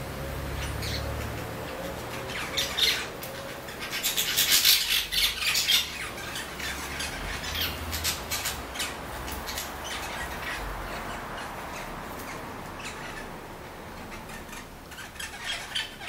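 Small green parakeets squawking and chattering in short, high-pitched calls. The calls are loudest and thickest about four to six seconds in, and pick up again near the end.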